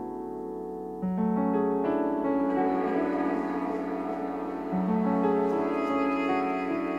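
Solo piano playing slow, held chords. A chord dies away for about a second, then a new chord sounds with notes added one by one, and the bass moves again about five seconds in.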